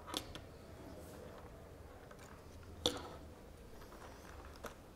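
Two sharp clicks about two and a half seconds apart, then a softer one near the end, over faint room tone: hands working a laptop.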